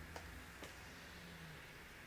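Near silence with a low steady hum and two faint, short clicks about half a second apart.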